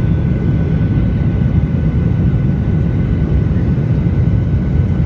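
Airliner engines and airflow making a steady, loud low rumble, with faint steady whining tones above it.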